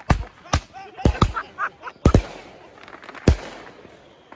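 500-gram repeater firework cake firing, its shells going off as about six sharp booms, unevenly spaced, each with a short echo.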